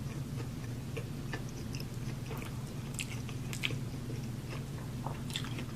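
A person chewing food close to the microphone, with soft, irregular clicks and smacks of the mouth over a steady low hum.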